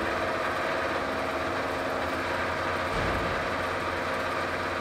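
Cincinnati Cinova 80 vertical milling machine running under power, a steady geared hum with a brief low bump about three seconds in.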